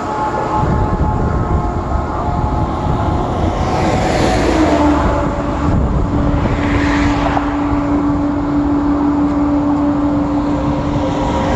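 Expressway traffic passing close by: trucks and cars going by one after another, tyre noise and engine drone swelling as each vehicle passes, with a steady engine hum through the middle.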